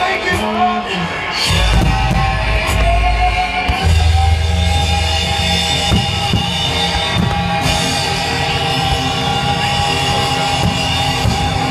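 Loud rock music with drums and guitar, long held guitar notes over a heavy bass line.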